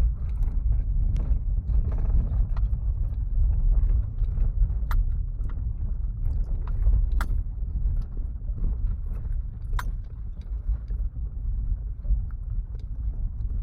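Kia Picanto driving on a gravel road: a steady low rumble of tyres and engine on the loose surface, with scattered sharp clicks from stones flicking up against the car, several of them a few seconds apart.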